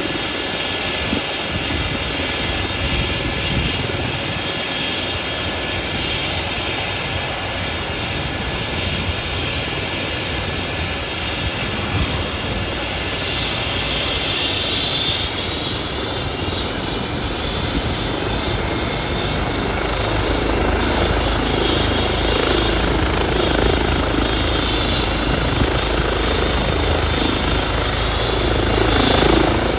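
Rescue helicopter running on the ground, turbine engines and main rotor turning, with a steady high turbine whine over the rotor noise. About twenty seconds in, the low rotor beat grows stronger and the whole sound gets a little louder.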